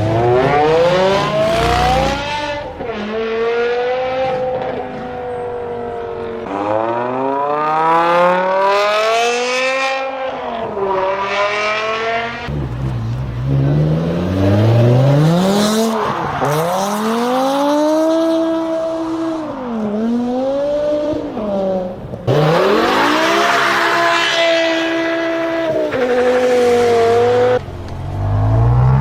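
BMW M5 E60's V10 engine revving and accelerating hard, its pitch climbing steeply and then dropping again over and over, in several separate runs that break off suddenly one after another.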